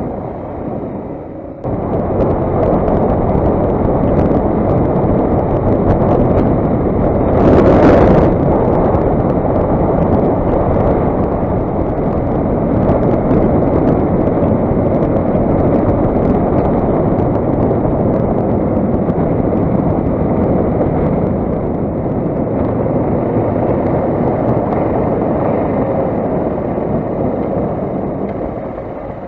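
Motoland XR 250 enduro motorcycle running under way, a steady loud rush of engine and wind noise on the microphone, with a sudden louder gust about eight seconds in; the noise eases off near the end.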